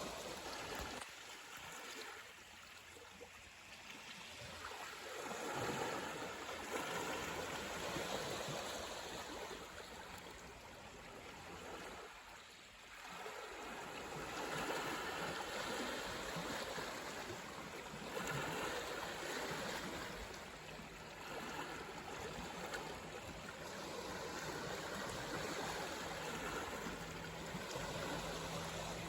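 Sea waves washing in: a steady rushing hiss of water that swells and falls back in surges every few seconds.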